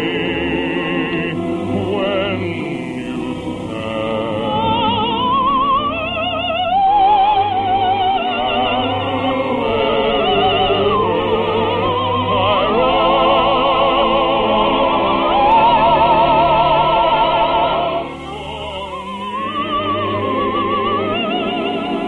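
Operatic singing with orchestra accompaniment: voices with a wide vibrato holding and gliding between long notes. The music drops in level for a moment about eighteen seconds in, then builds again.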